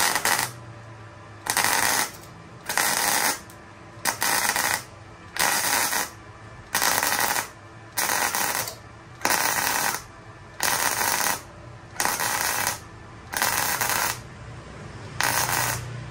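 MIG welding arc on stainless steel with 308 stainless wire, sounding crisp, laid down as about a dozen short bursts roughly one and a half seconds apart as the trigger is pulsed in a stitch weld.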